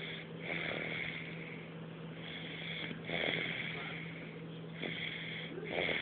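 Snoring in slow, repeated breaths: a louder snore about every three seconds, with quieter breaths between.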